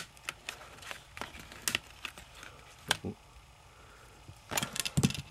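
Plastic case of a TomTom GPS unit being pried apart: irregular sharp clicks and snaps as its clips give, with a quick cluster of them near the end.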